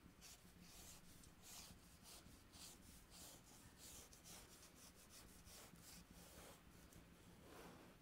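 Red drawing pencil scratching faint strokes across rough, textured paper, a couple of strokes a second, over a faint steady low hum.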